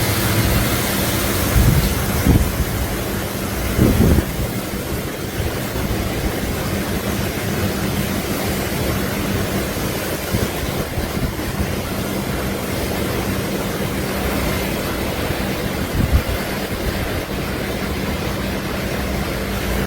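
Strong typhoon wind blowing against the microphone as a steady rushing noise, with gusts buffeting it a few times. A faint steady low hum runs underneath.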